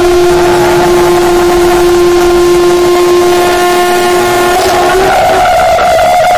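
Conch shell (shankha) blown in one long, loud, steady note; about five seconds in it breaks up to a note an octave higher and carries on.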